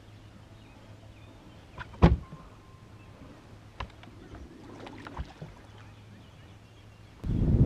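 A few sharp knocks and clicks of fishing gear handled on the boat over a faint steady low hum, the loudest knock about two seconds in. Near the end, loud wind buffeting the microphone cuts in suddenly.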